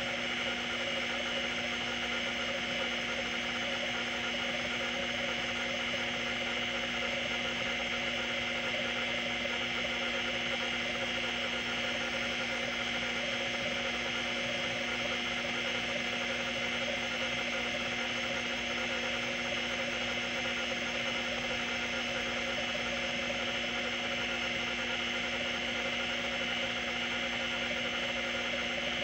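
Opened Seagate ST-212 MFM hard drive running a seek test: a steady whine and buzz from the spinning platter and the stepper-motor head actuator sweeping the heads back and forth, with no separate clicks standing out. The drive is damaged and no longer stores data, but still spins and seeks.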